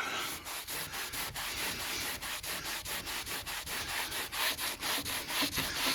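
Quick, regular back-and-forth strokes, several a second, working the failed, bumpy shellac finish off old oak woodwork by hand.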